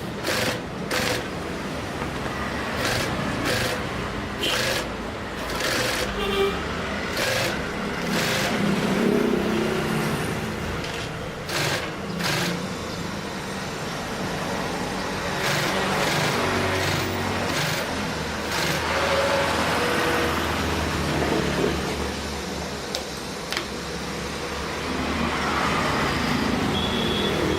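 Typical GC0303CX walking-foot industrial sewing machine stitching foam, running in short bursts with sharp clicks at first and then in longer runs.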